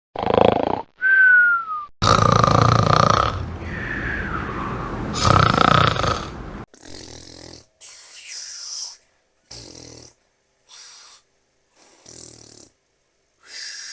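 Cartoon snoring sound effect: loud rasping snores alternating with a thin whistling tone that falls in pitch. The second half is a run of shorter, quieter snores about one a second.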